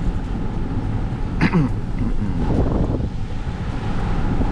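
Steady low rumble of a car on the road, with wind buffeting the microphone. A brief falling sound comes about a second and a half in.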